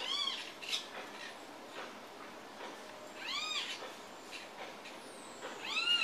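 Small green parakeet giving three short calls about three seconds apart, each rising then falling in pitch, with faint high chirps between.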